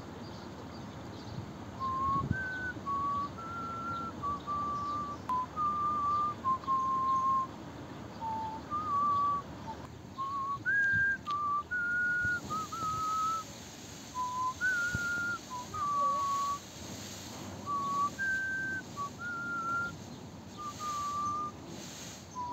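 A person whistling a tune: a run of clear, steady notes, each held briefly, stepping up and down in pitch, starting about two seconds in.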